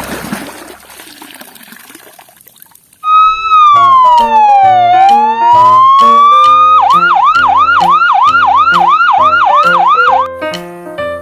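Water pouring faintly and fading away, then about three seconds in a loud electronic siren starts over background music: one slow wail falling and rising again, then a fast yelp repeating about three to four times a second, which stops near the end.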